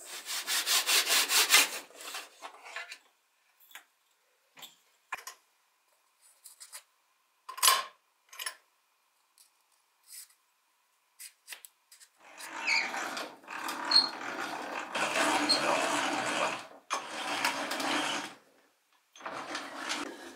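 A pencil scratching quickly back and forth along a small wooden block for about two seconds. Then come scattered light clicks and one sharp metallic clink, as tools and steel drill bits are handled. From about twelve seconds in, a drill bit bores into the wooden block in long spells broken by short pauses.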